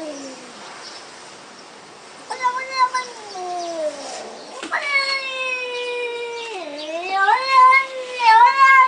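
A domestic cat yowling in long, drawn-out calls. One falling yowl fades at the start and a shorter one drops in pitch about two seconds in. From about five seconds in comes a long yowl that dips and rises again, breaking into shorter, louder yowls near the end.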